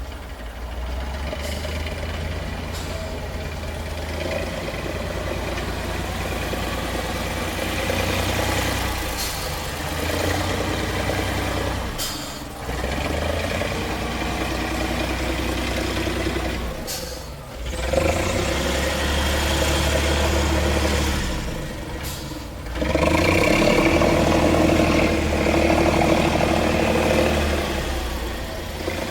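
BL 130's diesel engine running and working under changing load, with short "pffft" or "scht" hisses of air now and then as its compressed-air control lets air out of the air cylinders through their valves at changes of direction, steering or braking. The hisses are the sign that the air control is working properly.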